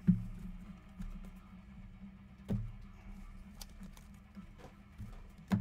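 Trading cards and packs being handled on a tabletop: three sharp taps, a couple of seconds apart, and a few fainter clicks over a steady low hum.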